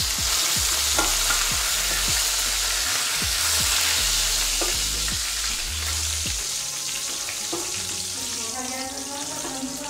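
Curry leaves, garlic and cumin sizzling loudly in hot oil for a tempering (phodni), stirred with a steel ladle; the sizzle eases a little toward the end.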